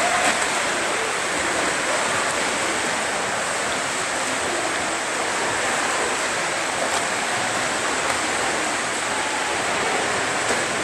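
Steady rush and splash of churned swimming-pool water from a child swimming front crawl, with no distinct individual splashes standing out.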